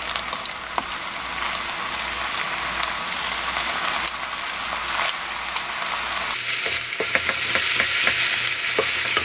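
Pork and sour kimchi sizzling as they are stir-fried in a frying pan, with wooden chopsticks clicking and scraping against the pan as they are turned. The sizzle and clicking grow louder about six seconds in.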